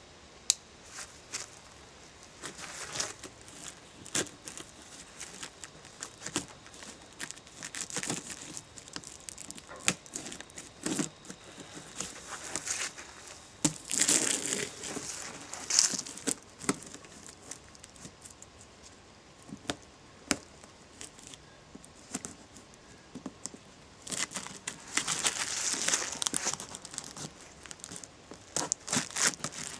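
Plastic stretch wrap crinkling and tearing as it is cut and pulled off a large cardboard shipping box, with scattered sharp clicks and rustles. It gets louder in two spells, about halfway through and again a few seconds before the end.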